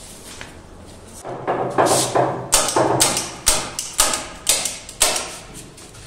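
Hand staple gun firing staples through snooker table cloth into the wooden rail, a sharp snap about twice a second starting about a second and a half in.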